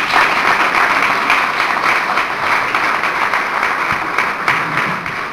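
Audience applauding: dense, steady clapping that dies away at the very end.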